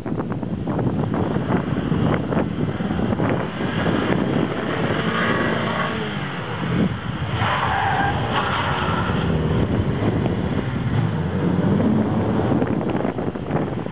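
Cars driven hard through a cone course: engine revving and falling in pitch, with tyres squealing briefly about halfway through. Wind buffets the microphone throughout.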